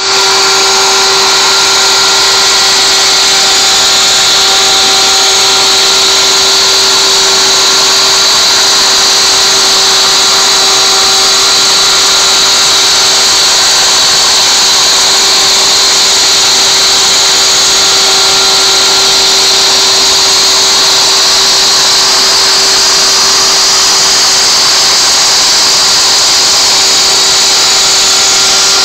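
CNC router spindle turning at 24,000 rpm, its 1/8-inch up-shear solid carbide spiral bit cutting into knotty alder: a steady whine over a continuous hissing cutting noise.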